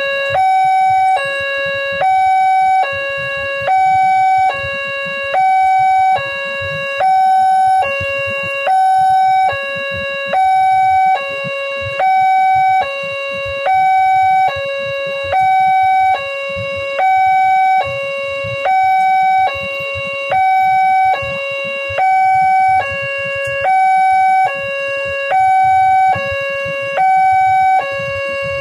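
Railway level-crossing warning alarm sounding a steady two-tone alternation, a higher and a lower tone each held a little under a second. It signals that a train is approaching the crossing.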